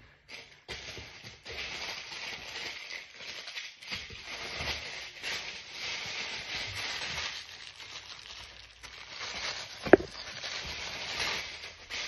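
Packaging rustling and crackling as hands dig through a cardboard box and pull out items wrapped in plastic bags and tissue paper, with one sharp snap about ten seconds in.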